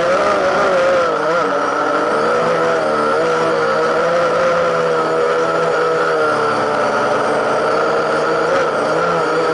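Camera drone's propellers and electric motors whining close to its onboard camera. The several steady pitches waver during the first couple of seconds, then hold nearly steady.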